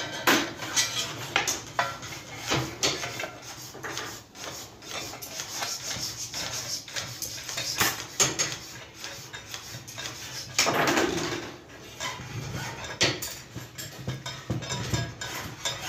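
Metal clinking, tapping and scraping as a long steel rod is worked through the bores of a cast-iron sewing machine body with a T-handle wrench: many short sharp clicks and knocks, and a longer scrape about two-thirds of the way in. A faint low hum runs underneath.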